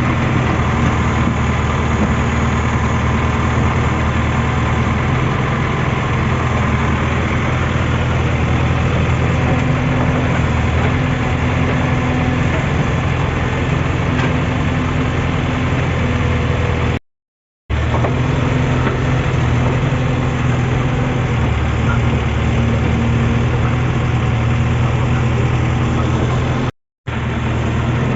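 Heavy diesel engine of earth-moving or farm machinery running steadily at a low, idle-like speed. The sound cuts out completely twice, briefly, once in the middle and once near the end.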